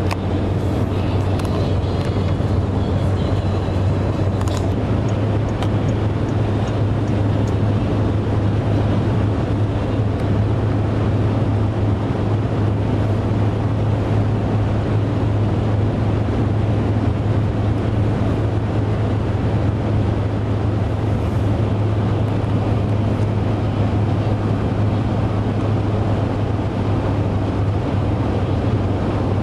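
Steady low hum and rumble of a vehicle in motion, unchanging throughout.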